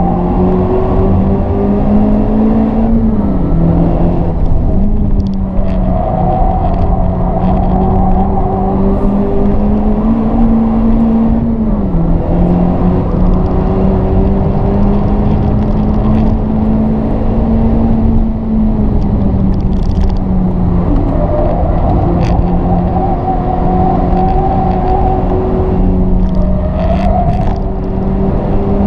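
Honda Civic Type R FK8's 2.0-litre turbocharged four-cylinder engine pulling hard, heard from inside the cabin over loud tyre and wind noise. The engine note climbs slowly and drops sharply twice, about three and twelve seconds in, at upshifts. It eases off more gently a little past halfway.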